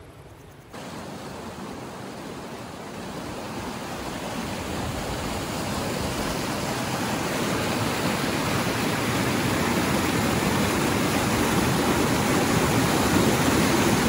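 Rushing water of a mountain stream. A steady noise comes in suddenly about a second in and grows steadily louder.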